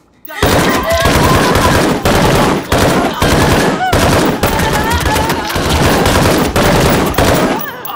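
A handgun firing rapidly and without let-up, shot after shot, while a woman screams over it. The firing starts about a third of a second in and stops sharply near the end.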